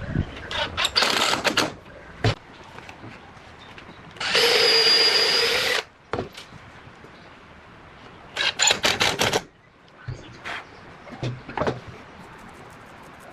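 Electric hand drill running in one short burst of about a second and a half, with a steady whine. Around it, clusters of sharp clicks and knocks.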